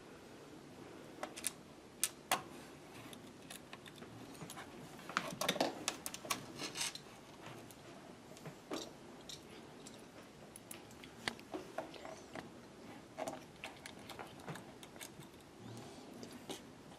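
Handling noises from working on a laptop's underside: scattered sharp clicks and light rattles of small plastic and metal parts, with a denser run of them about five to seven seconds in.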